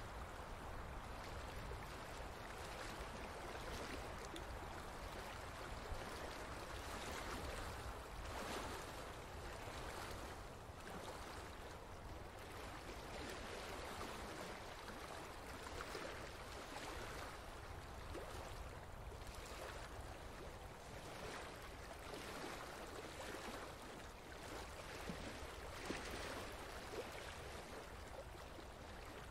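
Faint, steady rush of flowing water, swelling and easing gently.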